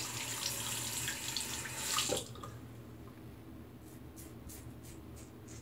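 Bathroom tap running into the sink, shut off sharply about two seconds in. A few seconds later come several short scrapes of a Rockwell 6C double-edge safety razor cutting through lathered stubble.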